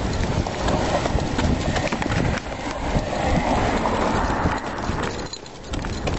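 Rhythmic footfalls of a person jogging on a concrete sidewalk, with the handheld camera jostling in time with the stride. The sound dips briefly about five seconds in.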